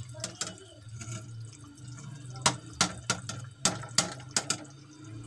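Steel ladle stirring the watery cooked greens and chana dal in an aluminium pressure cooker: wet sloshing, then a run of about seven sharp clinks of the ladle against the pot from about halfway in, over a steady low hum.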